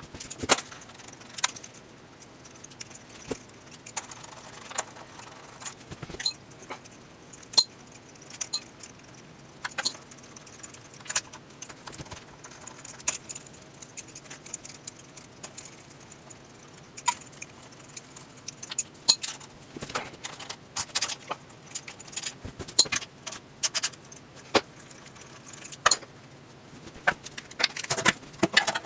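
Irregular metallic clicks and clinks of hand tools and transmission parts being handled, sometimes spaced out and sometimes in quick clusters, busier near the end.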